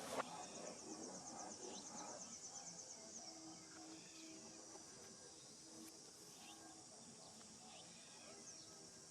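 Faint outdoor insect chorus: a steady high-pitched drone, with a rapid pulsed trill over the first three seconds. A sharp click comes just after the start, and a few short chirps are scattered through.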